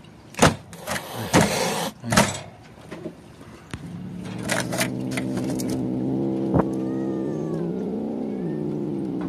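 Feral stray cat hissing in several sharp bursts, then a long, low, steady growl from about four seconds in that dips in pitch near the end: a defensive warning from a cat not yet tamed.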